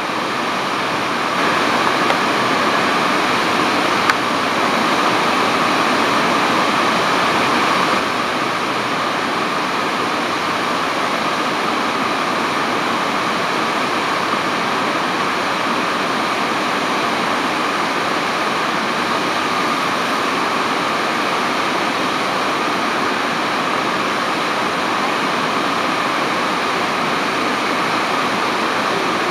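Steady rushing noise of the Iguazu Falls waterfall, a dense wall of falling water and spray with no let-up.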